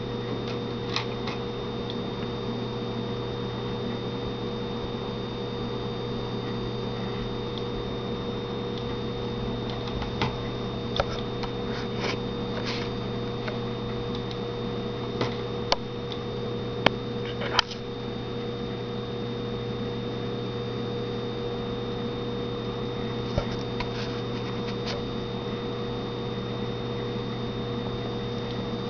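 Steady electrical hum with a few fixed tones, broken now and then by short, sharp clicks, about a dozen scattered through.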